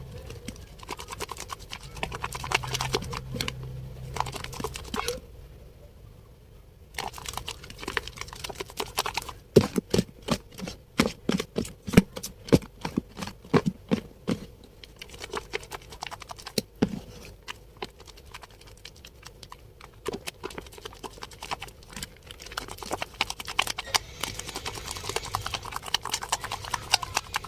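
Wet Dettol bar soap being lathered: rapid sticky, squelching clicks and rubbing. It pauses briefly a few seconds in, then comes back as a dense run of quick wet clicks.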